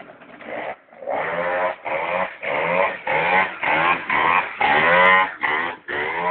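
Gilera Ice 50cc two-stroke scooter engine revved in short bursts, about ten in a row, each rising in pitch before dropping away: the throttle is being pumped to hold the front wheel up in a wheelie.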